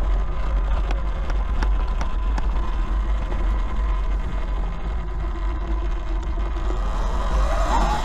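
Riding an Eride Pro SS electric dirt bike on a trail: heavy wind rumble on the microphone and tyre and trail noise, with a faint electric-motor whine that rises near the end and scattered small clicks and knocks.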